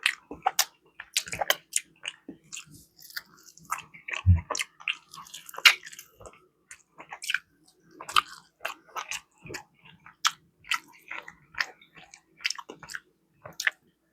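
Close-miked chewing and biting into barbecue chicken wings: irregular wet clicks, smacks and crunches from the mouth, with a single low thump about four seconds in.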